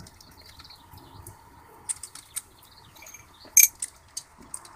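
Scattered sharp metallic clicks and clinks of cylinder head bolts and washers being handled and lifted out of an engine's head, the loudest about three and a half seconds in.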